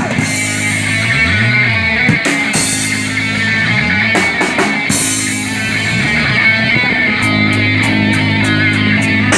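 Live rock band playing an instrumental passage: guitar, bass and drum kit, with a low note swooping up and back down three times.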